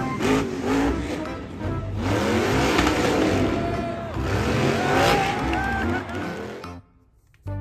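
Monster truck's supercharged V8 engine revving hard, its pitch swinging up and down again and again, over a dense rushing noise. The sound cuts off abruptly near the end.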